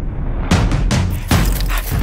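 Background music with a steady deep bass and loud hits, one about half a second in and another just past a second.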